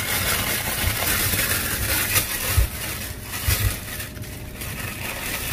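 Thin plastic carrier bag rustling and crinkling as it is handled and opened, with a few soft low knocks around the middle.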